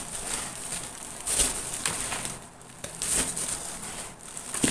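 Thin plastic bag crinkling and rustling as handfuls of moist sawdust growing medium are dropped in and pressed down to build a layer of an oyster mushroom bed, in several short irregular rustles.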